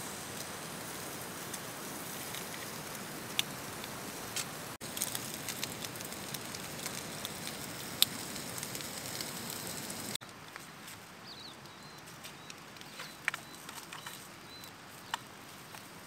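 Bacon and an egg sizzling in a frying pan on a gas camping stove: a steady hiss with scattered sharp pops, quieter after about ten seconds.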